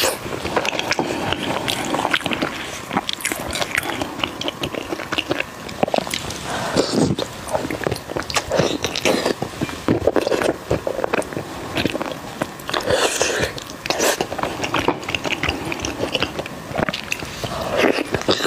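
Close-miked mouth sounds of a person eating braised pork trotter dipped in chili oil: biting and chewing, with a dense, irregular run of small clicks and smacks.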